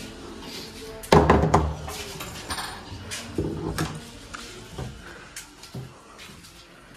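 A door being handled and footsteps in a small room, with a loud knock about a second in and a few lighter knocks and clicks after.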